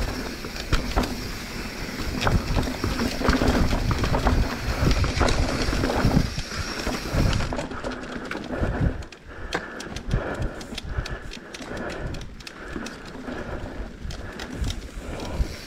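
Mountain bike riding down a rough singletrack trail: tyres crunching over stones and roots and the bike rattling in a dense run of clicks and knocks, over heavy wind rumble on the microphone that eases about halfway through.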